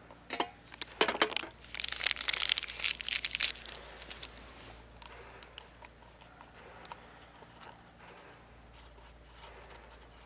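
A couple of sharp clinks in the first second and a half, then a small packet crinkling and tearing for about two seconds, fading into faint rustles.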